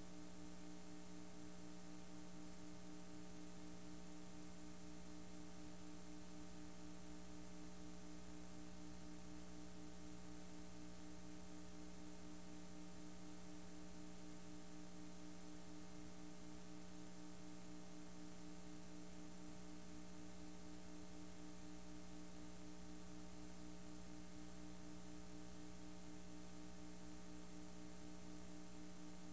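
Steady electrical hum with a faint hiss from a blank stretch of VHS tape playback.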